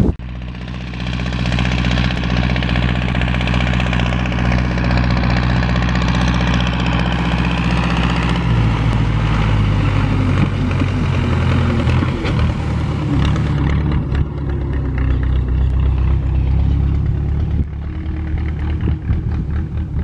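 Diesel engine of an MTZ 552 tractor running steadily under load as it drives past close by. Its note drops about halfway through as it passes, and the sound fades near the end.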